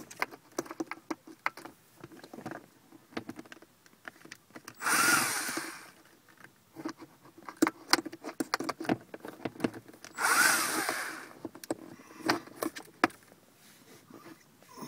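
Small cordless electric screwdriver spinning in two bursts of about a second each, about 5 and 10 seconds in, backing out screws that hold the car's rear body section. Scattered clicks and rattles of the tool and screws being handled come between the bursts.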